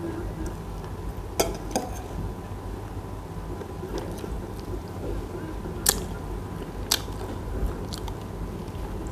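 A person eating bread, biting and chewing, with a few sharp clinks of a metal spoon against a glass bowl.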